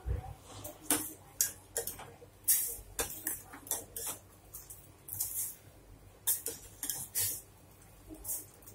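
Steel spoon stirring in a stainless steel pot of jaggery and water, knocking and scraping against the pot's sides in an irregular string of clinks.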